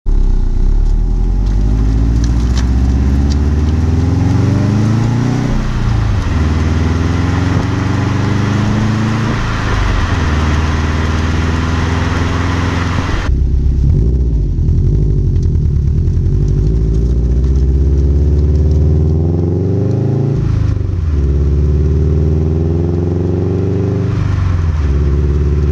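Subaru WRX hatchback's turbocharged flat-four heard at the exhaust tips under light-load cold acceleration: revs rise through first, fall at the shift to second and rise again. It is heard in two takes, stock axle-back and Nameless Performance axle-back with 5-inch resonators, with a sudden cut about halfway through; the first take carries more hiss over the exhaust note.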